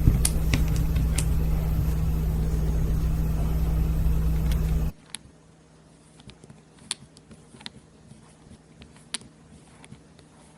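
A loud, steady motor-like hum that cuts off abruptly about five seconds in, followed by faint small metallic clicks of a driver working a small screw.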